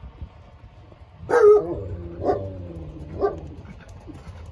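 A dog barking three times, about a second apart, the first one the loudest.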